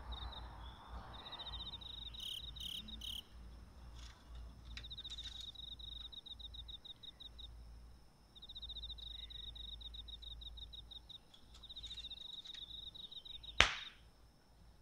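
Cricket chirping in repeated trills of rapid high-pitched pulses, each a second or two long with short pauses between them. A single sharp click comes shortly before the end.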